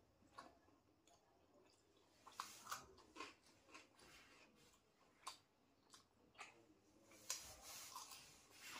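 Faint sounds of eating by hand: scattered soft clicks and wet smacks as fingers work chicken curry and rice on a steel plate, with a longer, noisier stretch near the end as a mouthful is taken and chewed.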